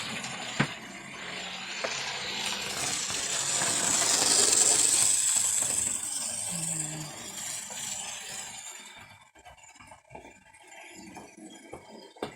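HO scale model locomotive, an F unit, running along the track with a metallic rattle and clicking of wheels on rail. It grows louder as it passes close about four to five seconds in, then fades away.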